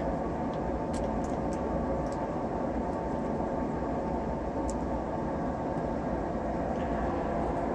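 Steady droning background noise, with a few faint light clicks from test leads being handled.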